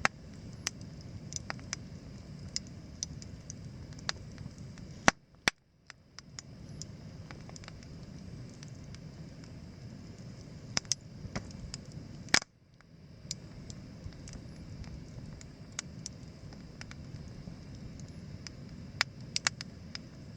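Campfire crackling, with sharp irregular pops and snaps over a steady low rustle of burning. The sound drops out briefly twice.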